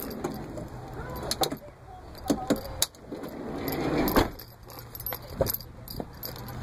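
A bunch of car keys jangling in the hand, with scattered clicks and knocks and a rustle that ends in a sharp knock about four seconds in.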